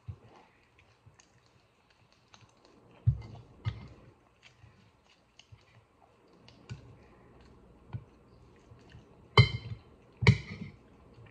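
Table eating sounds: a metal fork clicking and scraping against a plate, with soft chewing between. Sharper knocks come about three seconds in and twice, loudest, near the end.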